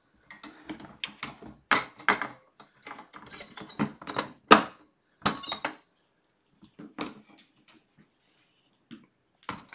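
Plastic pet carrier with a wire-grid door being handled and moved: a quick run of sharp rattles and clatters, loudest about halfway through, then a few scattered knocks.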